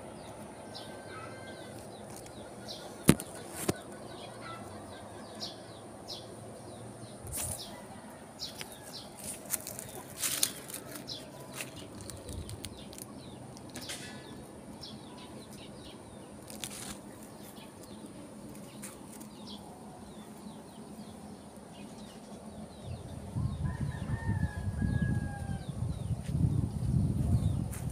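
Small birds chirping intermittently, with a few sharp clicks. Near the end comes a louder low rustling noise lasting several seconds.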